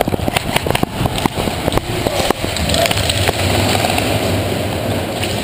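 Running footsteps and knocking gear picked up on a body-worn GoPro as an airsoft player runs, a string of irregular knocks over the first couple of seconds, then a steady rushing noise.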